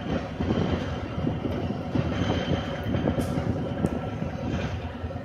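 Diesel locomotive engine running under load with a heavy low rumble and irregular crackling from the exhaust. Flame is coming from the turbocharger as unburned oil that has entered the exhaust manifold burns off.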